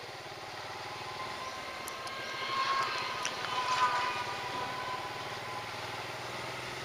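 A vehicle running along a road, heard from on board: a steady motor hum and road noise, with a higher whine that swells about two to four seconds in and then settles.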